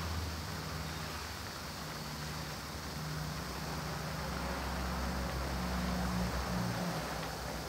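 Banana pieces in sweetened coconut milk with palm sugar boiling hard in a steel pan: a steady fizzing, bubbling hiss with a low hum underneath.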